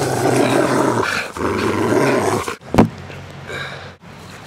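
Dog growling in play, two long growls, then a sharp knock a little under three seconds in.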